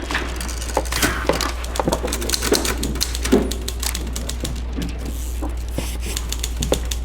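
Old-fashioned office ambience: a steady low hum under scattered clicks and knocks, some of them heavier thuds, with a short rustle about five seconds in.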